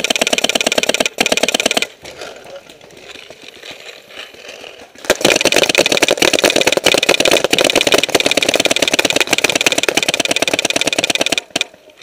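Paintball marker firing in long, rapid bursts of many shots a second: one burst ending about two seconds in, fainter scattered shots for a few seconds, then a long unbroken stream of fire that stops shortly before the end.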